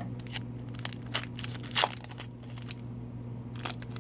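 Hockey card pack wrapper being cut open with scissors and handled, crinkling in scattered short crackles, with a sharper crinkle a little under two seconds in.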